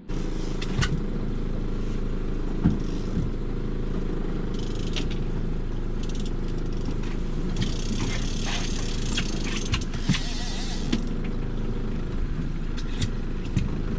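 Boat motor running steadily, with scattered sharp clicks and knocks over it.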